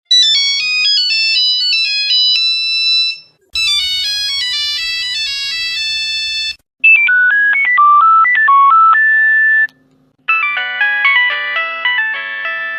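Nokia phone ringtones from different years playing one after another: four short electronic melodies of about three seconds each, with brief silences between them. Each version has its own tone colour.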